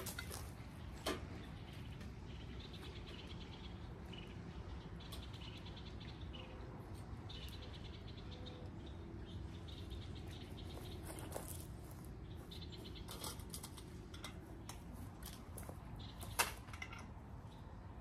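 Quiet yard ambience with high chirping trills that come and go every couple of seconds. A few sharp clicks from a feeder being handled on a metal shepherd's hook, the loudest about a second in and again near the end.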